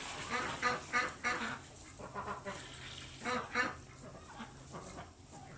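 Domestic waterfowl giving short honking calls, about half a dozen in the first four seconds.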